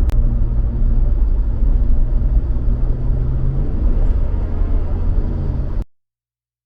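Road and engine noise heard from inside a moving car: a steady low rumble with an engine hum that rises a little, cutting off abruptly near the end.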